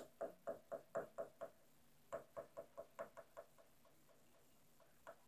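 A small plastic doll tapped against a porcelain sink basin to act out walking: two runs of about seven light knocks, roughly four a second, then a single tap near the end.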